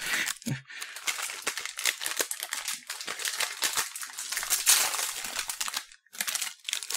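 Crinkly wrapper of a packaged caramel ring cake rustling and crackling in the hands as it is opened: dense crinkling for about six seconds, a short pause, then a few more crinkles near the end.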